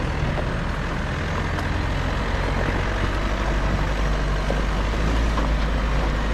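A 4x4 pickup's engine running steadily at low revs as the truck crawls up a steep, leaf-covered dirt track, giving a continuous low rumble with an even noise of the tyres and the ground over it.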